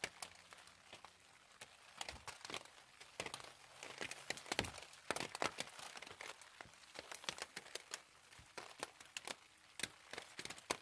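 Raindrops hitting a clear plastic tarp overhead: faint, irregular ticks and crackles over a light hiss, with a soft low thump about halfway through.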